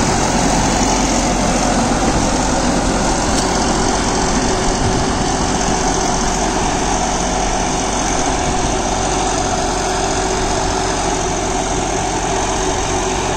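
John Deere 5075E tractor's 2.9-litre common-rail diesel engine running steadily under load, driving a Shaktiman Tusker rotary tiller through the PTO as it mulches banana stalks into the soil.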